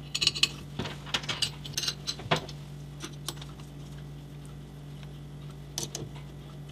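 Small metallic clicks and clinks of M6 screws and a T-handle hex key against an aluminum mounting plate as the screws are set into their holes, mostly in the first two and a half seconds and again briefly near the end, over a steady low hum.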